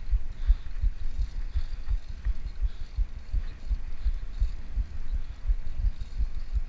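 Wind buffeting an action camera's microphone on a moving bicycle: a low, uneven rumble of thumps, several a second, with faint hiss above.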